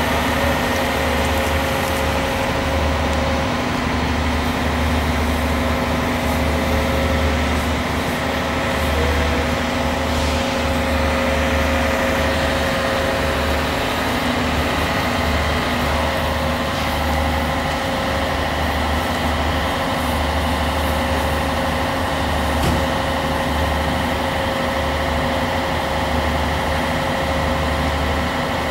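A large lattice-boom crawler crane's diesel engine running steadily while it holds a suspended heavy load, a constant hum with a deep rumble that swells and drops every second or two.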